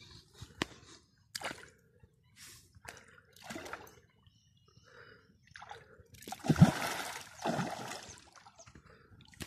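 Water splashing in the river shallows: a few short splashes, then a bigger burst of splashing about six seconds in that lasts around two seconds.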